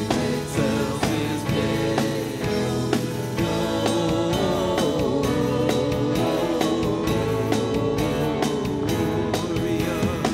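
Live band playing a worship song: Yamaha keyboard, electric guitars, bass and drum kit, with a steady beat. A singing voice comes in over the band from about four seconds in.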